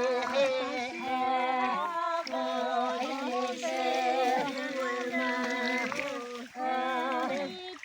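Unaccompanied group of voices singing a traditional work chant, one low note held steady while other voices waver above it, with brief breaths about two seconds and six and a half seconds in.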